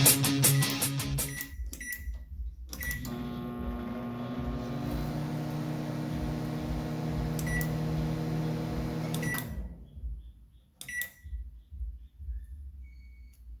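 Microwave oven with physical push buttons fitted in place of its failed membrane keypad. It beeps a few times as it is set, then runs with a steady hum for about six seconds. Around the time it stops come more beeps, and a click with a beep follows.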